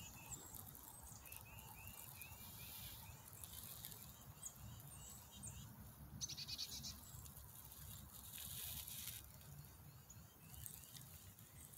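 Faint birdsong from the lakeshore: a run of short repeated chirps early on and a fast, brief trill about halfway through, over a steady low rumble.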